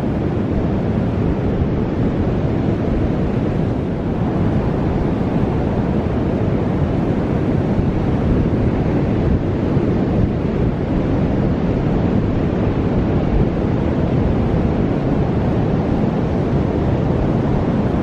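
Strong wind blowing over the microphone, a steady low rush, mixed with the continuous wash of ocean surf.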